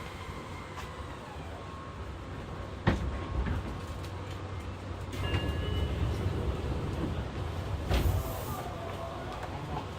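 Fukuoka City Subway 2000-series car heard from inside, with a steady low rumble. There is a sharp click about three seconds in and a short burst of hiss about eight seconds in.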